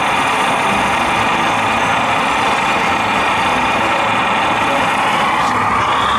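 Radio-controlled model Liebherr crawler excavator working, giving a steady mechanical drone and whine whose pitch rises near the end.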